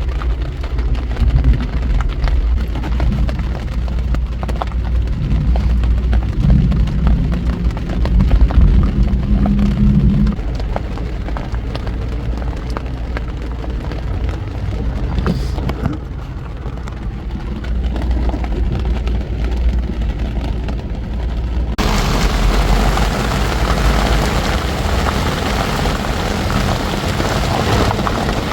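Rain with a heavy low rumble, and no clear pattern. About three-quarters of the way through, a loud, even hiss starts suddenly and continues.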